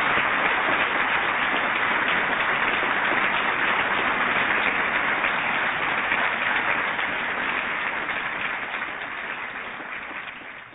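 Audience applauding steadily, then thinning and fading away near the end.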